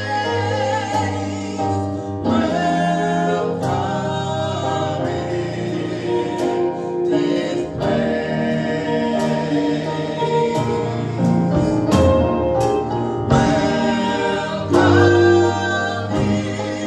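Live gospel praise band and group of singers performing a worship song: voices together over the band, with a steady beat.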